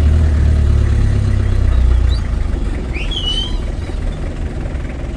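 Vehicle engine running with a steady low hum, heard from inside the cab, easing off about two seconds in. A short high squeak about three seconds in.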